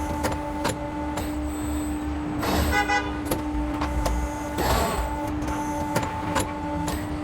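CNC pipe-processing machine working: a steady hum with a constant tone, sharp clicks, and short hissing bursts about every two seconds.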